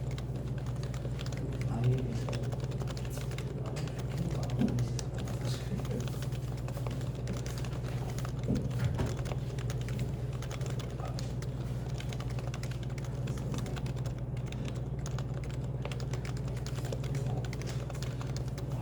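Typing on a Happy Hacking Keyboard: a steady run of keystrokes over café background voices and a low steady hum.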